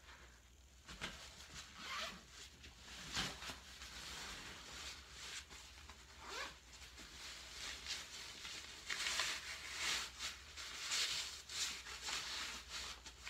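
Zipper on a Graco Pack 'n Play fabric carry bag being unzipped in a series of pulls, with the bag's fabric rustling as it is handled and opened. The longest, loudest zipper runs come near the end.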